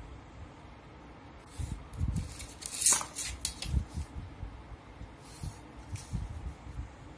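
Pencil scratching along a plastic ruler on invitation cardstock in several short strokes, the loudest about three seconds in, with soft knocks of the ruler and hands on the table.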